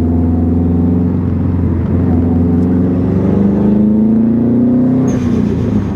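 Turbocharged 2.5-litre flat-four of a 2015 Subaru STI pulling under acceleration, its pitch rising for a few seconds. Near the end the throttle closes and the HKS blow-off valve vents with a short hiss as the revs fall.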